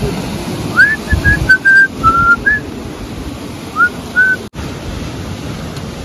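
A string of about eight short whistled notes, some sliding upward, over the steady rush of a mountain stream and waterfall. The notes come from about a second in to past the middle, and the sound cuts out for an instant just after them.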